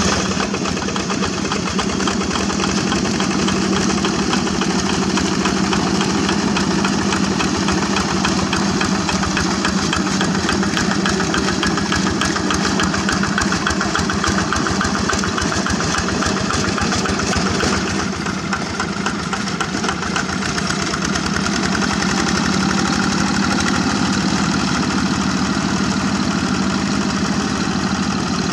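Single-cylinder Kubota diesel on a two-wheel walking tractor, running steadily with a fast diesel knock while the tractor pulls its cage wheels through flooded rice-paddy mud.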